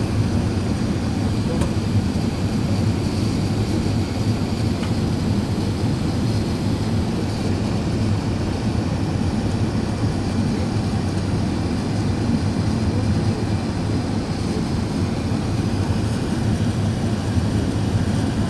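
Steady low rumble of Airbus A380 cabin noise, engines and rushing airflow heard from a passenger seat, on the descent toward landing.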